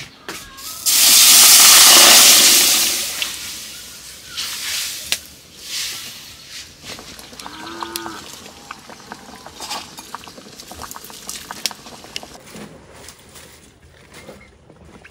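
Pork hitting a hot wok: a sudden loud sizzling hiss about a second in that fades over two to three seconds, then quieter sizzling with scattered ticks. A short low animal call near the middle.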